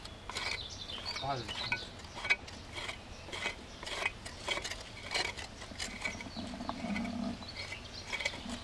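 Several metal hand trowels scraping and scratching at dry, gritty soil: a run of short, irregular scrapes and light clinks.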